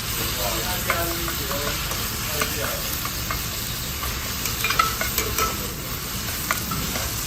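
Food sizzling as it cooks, a steady hiss broken by scattered light clinks and taps of metal utensils against the pan.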